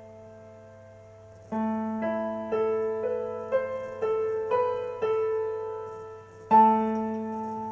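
Piano playing the closing bars of a slow ballad. A held chord fades, a new chord comes in about one and a half seconds in, and single melody notes follow about two a second. A last chord, the loudest, is struck near the end and rings on.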